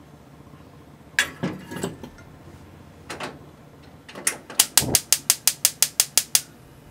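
Amber glass saucepan set down on a gas hob's metal pan grate with a few clatters, then the hob's spark igniter clicking rapidly, about six clicks a second for two seconds, as the burner is lit.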